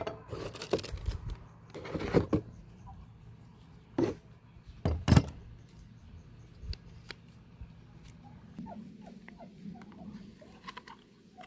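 Sharp mechanical clacks from an airsoft Glock 18C replica pistol: a cluster at the start, a pair about two seconds in, then single loud clacks about four and five seconds in. Faint short squeaks follow over a low hum in the second half.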